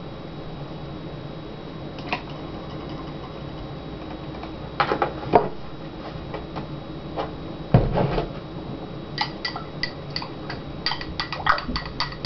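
A few scattered knocks and a thump of kitchenware being handled, then, from about nine seconds in, a small spoon clinking quickly and repeatedly against a glass as chocolate milk is stirred.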